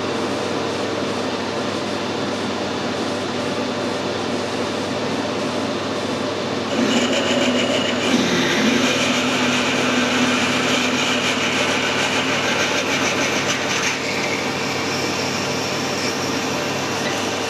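Metal lathe running at a reduced spindle speed while a 9.9 mm twist drill bores into the end of a steel bar. The cutting noise grows louder and brighter about seven seconds in and eases back about seven seconds later.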